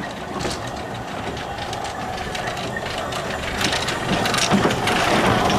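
Narrow-gauge steam tank locomotive passing slowly close by, its wheels and motion clicking and clanking. A hiss of steam from its cylinder drain cocks grows louder as it comes alongside in the second half.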